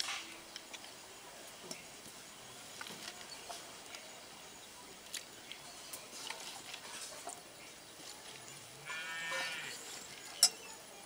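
Faint small clicks and rustles as handfuls of spinach leaves are dropped from a steel bowl into a clay pot of simmering dal. Near the end a farm animal bleats once, briefly, followed by a single sharp click.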